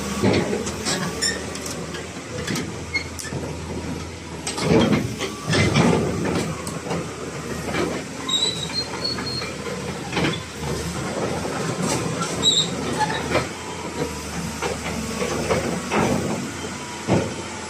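Hyundai R220LC-5 crawler excavator working, its Cummins 6BT5.9 six-cylinder diesel running steadily with a hiss, under irregular metal clanks and knocks, the loudest cluster about five seconds in.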